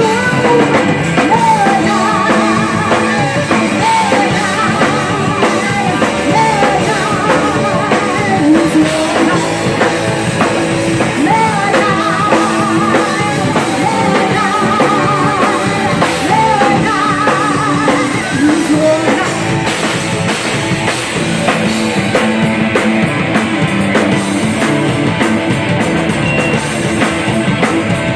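Live heavy metal band playing: two electric guitars, bass guitar and a drum kit, with a woman singing lead through a microphone.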